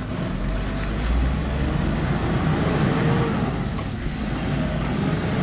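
Motor vehicle engine running with road noise, a steady low rumble whose pitch rises and falls a little a few times.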